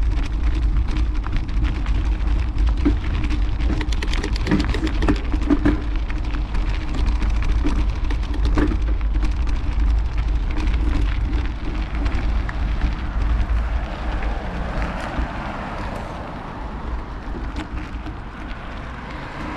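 Mountain bike's knobby tyres crunching over loose gravel on a bumpy surface, with many small clicks and rattles from stones and the bike, and a steady low rumble. It gets somewhat quieter in the last few seconds.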